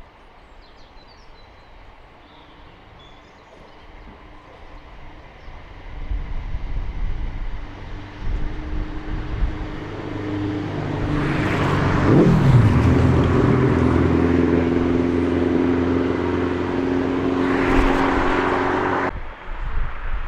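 A passing train, building up over several seconds into a steady hum of several tones from its engine or traction motors, with a tone that falls sharply about halfway through. The sound cuts off abruptly near the end.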